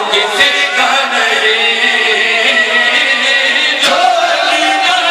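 Many voices chanting together over a loudspeaker system, a crowd joining a reciter at the microphone. Two sharp clicks cut through, one just after the start and one near the end.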